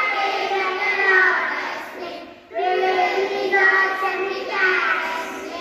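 Young children singing together in sung phrases with held notes, pausing briefly for breath about two and a half seconds in before the next phrase.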